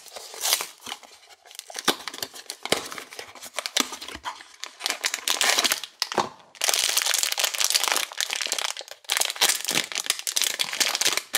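A cardboard blind box being torn open, then a foil blind-bag pouch crinkling as hands crumple and pull at it, the crackling densest in the second half.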